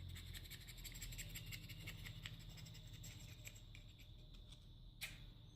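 Faint, rapid scratching and ticking from small carburetor parts being handled and worked on a bench, with one sharp click about five seconds in.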